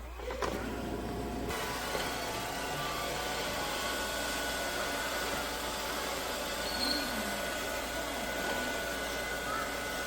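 eufy X10 Pro Omni robot vacuum running with a steady whir, after a single click just after the start.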